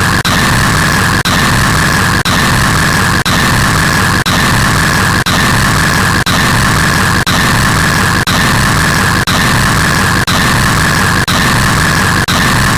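Loud, harsh static-like white noise, brightest in a band of upper-mid pitch, cut by a brief dropout about once a second where a short sound loop repeats.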